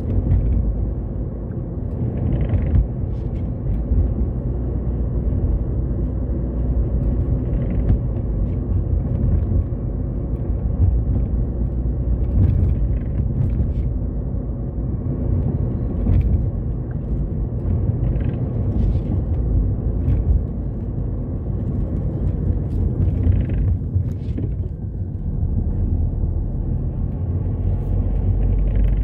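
Car driving along a road heard from inside the cabin: a steady low rumble of engine and tyre noise.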